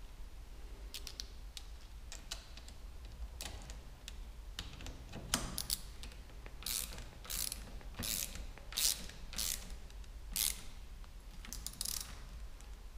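Ratcheting hex-bit screwdriver clicking as it tightens the bolt of a bar-end weight into a motorcycle handlebar. A few light clicks come first, then from about five seconds in a run of sharp ratchet strokes, one every half second to second.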